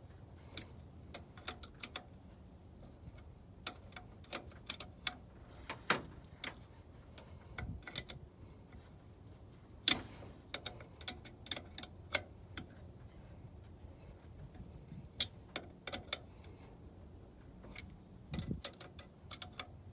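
Irregular sharp clicks and light taps of hand work on the brake master cylinder, handling tools and fittings, over a faint low hum. The loudest click comes about halfway through.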